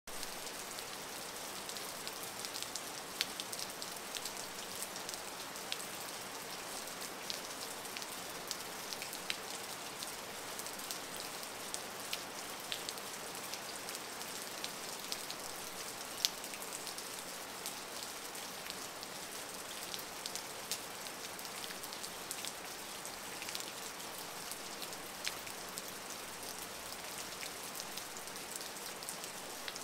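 Steady rain falling on a lawn and stone stepping stones: an even hiss with many individual drops ticking close by, scattered irregularly.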